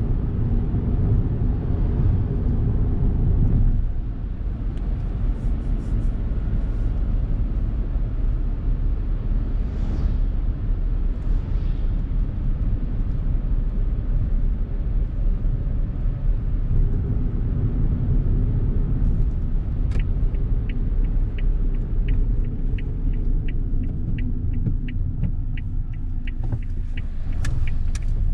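Steady road and engine rumble inside a Suzuki Hustler's cabin while driving, easing a little about four seconds in. From about twenty seconds in, a turn signal ticks evenly, about two to three clicks a second, for several seconds as the car nears a junction.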